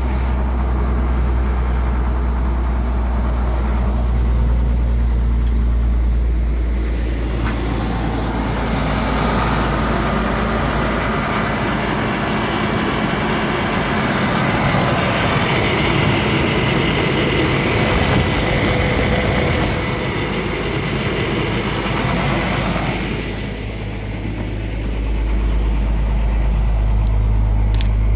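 Ford F-700's 6.6-litre turbo diesel running: it idles steadily, then runs at higher engine speed with a rushing hiss for about fifteen seconds, and settles back to idle near the end.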